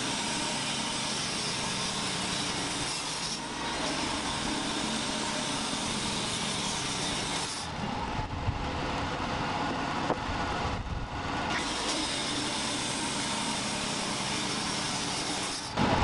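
Wood-Mizer LT35 portable band sawmill running steadily between cuts. The sound changes for a few seconds about halfway through, with a couple of sharp knocks during that stretch.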